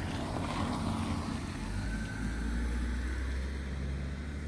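A low engine rumble that swells about a second and a half in and holds steady, with rustling handling noise at the start.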